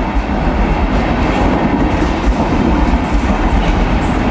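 Passenger coaches of a train rolling past at close range: a steady, loud rumble of wheels on rail.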